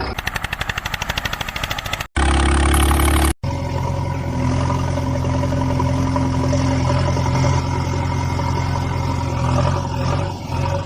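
Tractor engine sound in edited pieces. A fast, even putter lasts about two seconds, then an abrupt cut leads to a brief loud burst with a low drone. After another cut the engine runs steadily.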